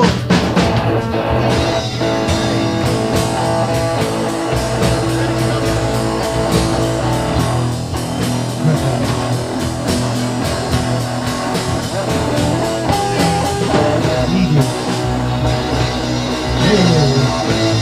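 Instrumental break in a rock song: guitar with a drum kit keeping a steady beat, no singing.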